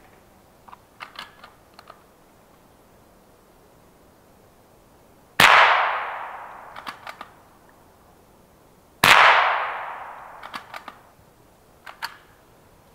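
Two gunshots from a hunting long gun about four seconds apart, each ringing off in a long fading tail through the forest. Small sharp clicks come before and after each shot.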